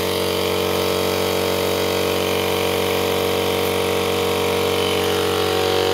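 EX-POWER piston air compressor running, a steady mechanical hum with a hiss on top that holds at an even level.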